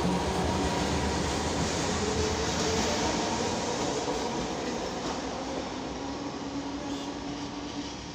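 An Alexandria electric tram running past on its rails, a dense rumble with a few thin whining tones over it, gradually fading as it moves away.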